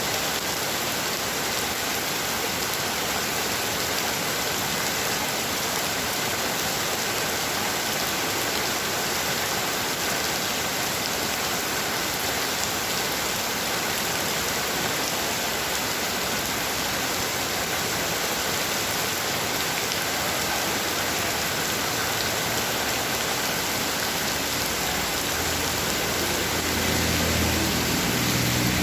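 Heavy rain falling steadily, an even dense hiss. Near the end a low rumble with a steady hum comes in and grows a little louder under the rain.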